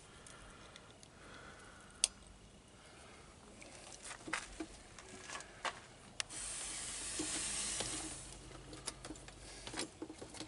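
Small clicks and taps of needle-nose pliers and a brass air-line fitting being handled, with one sharp click about two seconds in. Past the middle, a steady hiss runs for about two seconds.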